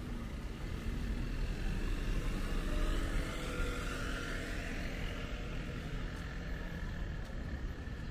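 A car passing on the adjacent road, its engine and tyre noise swelling to a peak about three seconds in and then fading, over a steady low rumble of traffic and wind on the microphone.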